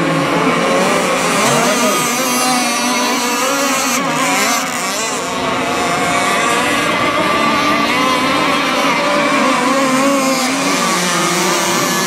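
Engines of several radio-controlled racing catamarans running at high revs together, their pitches wavering up and down as the boats race and turn.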